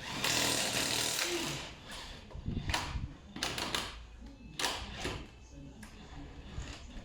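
Tyre-fitting workshop noise: a hiss of compressed air, then several short rattling bursts of a pneumatic tool.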